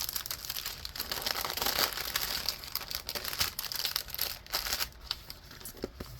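Plastic packaging crinkling and rustling as it is handled and pulled open, with many small crackles that thin out near the end.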